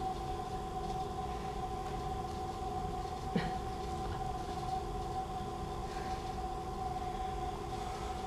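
Sustained electronic drone of several steady held tones over a low rumble, serving as the accompaniment to a stage dance. A single brief sharp sound about three and a half seconds in.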